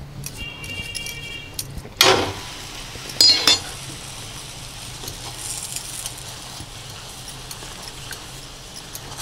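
A steel spoon scraping and clinking on a tawa and against the oil bowl, with a ringing scrape near the start and two sharp metallic clinks about two and three seconds in. After that, the oiled paratha sizzles faintly on the hot tawa.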